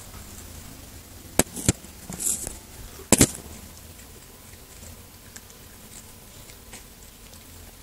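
A few sharp knocks and clicks from the camera being handled and set down: two single clicks, a short rustle, then a louder double knock, followed by faint scattered ticks.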